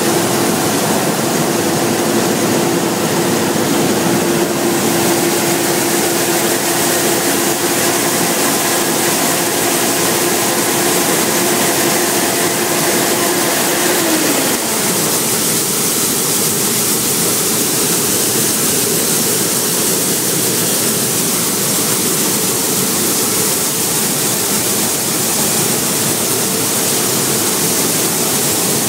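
Claas Lexion 600 combine harvester running, a loud, steady rushing noise with a hum over it. About halfway through the hum slides down in pitch and fades, and a slightly higher hum carries on.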